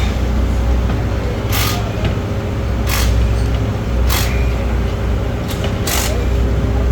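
Drag-racing pit work sounds: a steady low machine hum with a constant mid-pitched tone, broken four times by short, sharp hisses.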